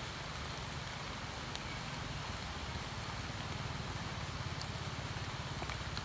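Steady rain falling on a flooded pond and the leaves above it: an even hiss with scattered single drop ticks, over a low rumble.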